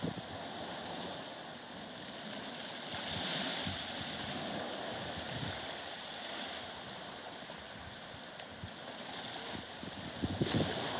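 Sea surf washing steadily, with wind on the microphone and a stronger gust about ten and a half seconds in.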